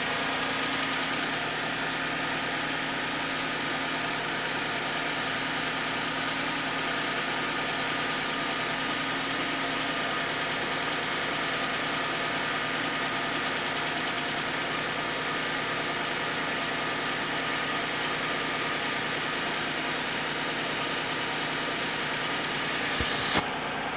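Suzuki Vitara engine idling steadily while cold, with the knock it makes on a cold engine. A few sharp knocks near the end.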